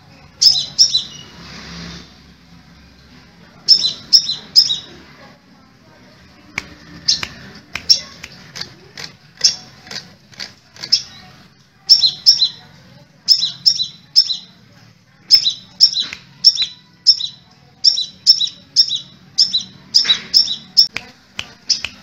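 Caged crimson sunbird (sepah raja) calling: short, sharp, high chips, often in quick runs of two to four, repeated about every second, with a short lull near the start.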